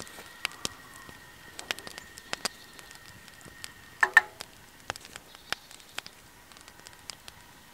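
Sticks burning in a small wood-gas twig stove, crackling with many sharp irregular pops. A brief louder clatter comes about four seconds in.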